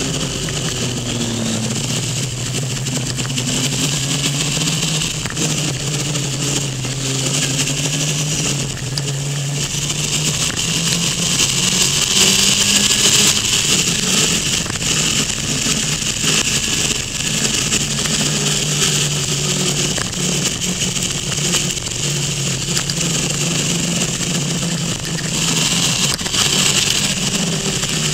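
Motorcycle engine running at speed through a series of bends, its note rising and falling as the throttle is rolled on and off, under a steady rush of wind noise that swells louder about halfway through and again near the end.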